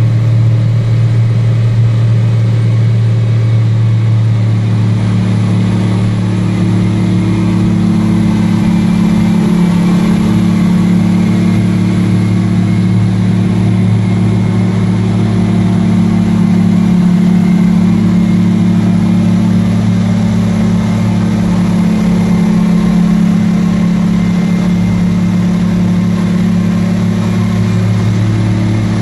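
Engine of heavy mining machinery running steadily at a low, even pitch, its tone shifting slightly about five seconds in.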